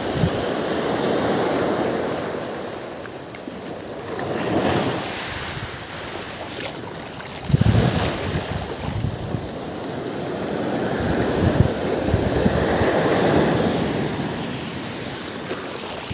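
Small surf breaking and washing up the shoreline, swelling and fading in slow surges.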